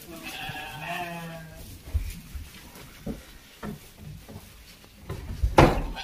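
A Karakul sheep bleats once, a call about a second long near the start. A few knocks follow, with a loud thump shortly before the end.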